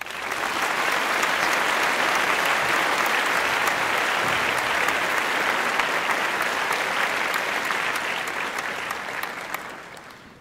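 A crowd applauding: dense clapping that comes up right after the song stops, holds steady, then fades out over the last couple of seconds.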